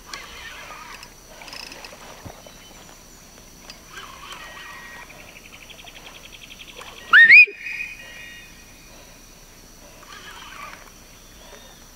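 Rainforest wildlife calls over a steady high-pitched hum, with a fast trill and then one loud rising whistle about seven seconds in.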